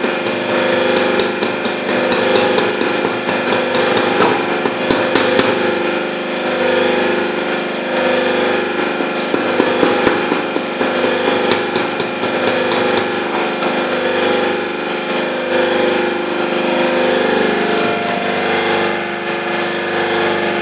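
Machinery running steadily with a constant hum of several steady tones, with bursts of sharp clicks or taps during the first half.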